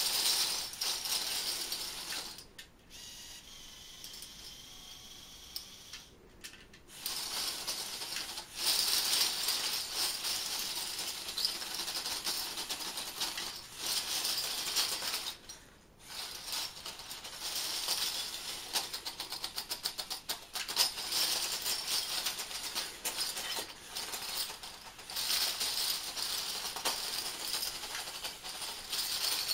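Metal crown bottle caps clattering and clinking as a LEGO Technic bulldozer shoves its blade into a pile of them, a dense rattle of many small clicks that eases off a couple of seconds in and picks up again.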